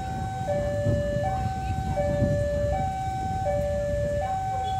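Electronic railway level-crossing alarm sounding a steady two-tone warning, alternating high and low about every three-quarters of a second, over a low rumble.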